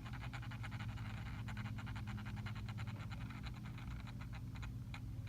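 Small motorized display turntable running with a steady low hum and a fast patter of small ticks, which thins to a few separate clicks near the end.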